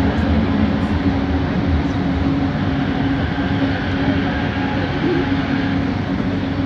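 Bombardier Innovia ART 200 light-metro train's linear induction motor running with a steady hum over the car's rumbling running noise as the train slows along a station platform, heard from inside the car.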